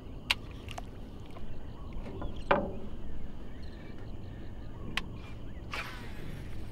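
Ambience aboard a small boat on open water: a low steady rumble with a handful of sharp clicks and knocks spread through, and a brief noisier rush near the end.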